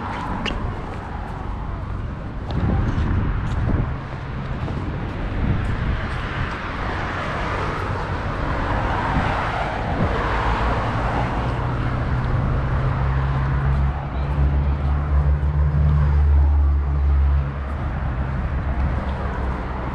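Street traffic: cars passing, one swelling past about halfway through, then a vehicle's engine running with a steady low rumble for about five seconds before it drops away.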